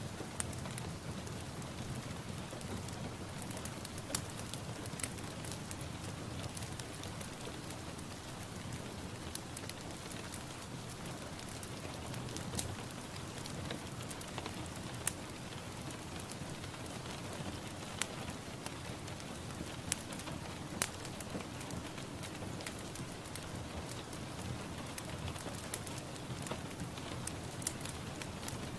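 Rain falling steadily, a constant hiss of rain with scattered sharper drop ticks.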